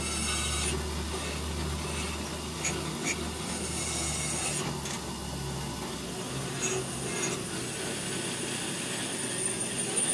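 Speedway Motors benchtop drill press drilling bolt holes in a cast metal plate: steady cutting and scraping, with a few sharp clicks.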